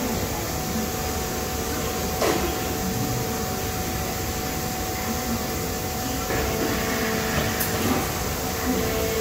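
Salvagnini P4 CNC panel bender running: a steady machine hum with a held tone, a sharp clack about two seconds in, and a shift in the hum around six seconds in.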